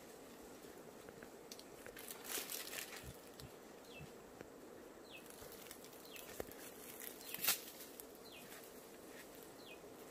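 Branches and leaves of a citrus tree rustling and cracking as a man climbs down it, with a sharp snap about three-quarters of the way through, over a faint steady insect buzz.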